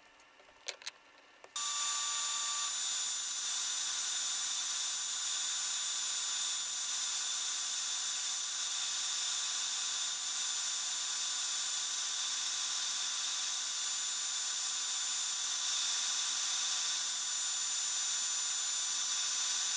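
Roctech RC5X5S CNC router spindle running steadily while machining an oak shelf, a high-pitched whine with several held tones. It comes in abruptly about a second and a half in, after a few faint clicks.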